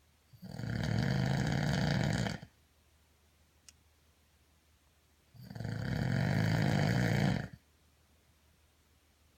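Snoring: two long snores about five seconds apart, each lasting about two seconds, with a faint click between them.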